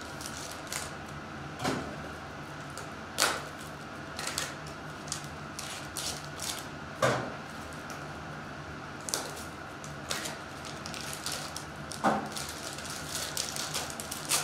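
Trading cards and foil pack wrappers being handled: a run of crisp clicks and crinkles, with a few sharper snaps and denser crinkling near the end.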